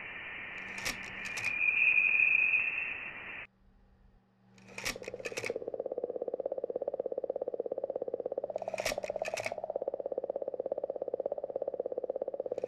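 Electronic sound design laid over the pictures. A hiss with a high steady tone swells, then cuts off abruptly. After a brief gap, a fast-pulsing buzz starts and runs on, with a quick burst of clicks repeating every four seconds.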